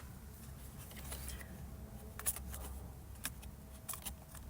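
Faint handling noises from laptop parts being worked on: a few small sharp clicks about two, three and four seconds in, over a low steady hum.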